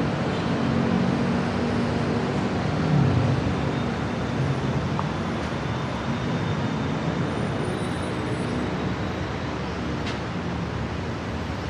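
Road traffic from cars, taxis and a pickup truck passing close by, engines humming steadily under tyre noise, a little louder about three seconds in.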